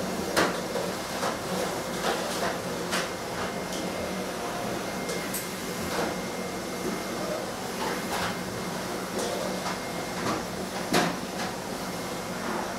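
A watercolour brush dabbing and scraping on paper, a few short scratchy strokes every two or three seconds, over a steady background hum.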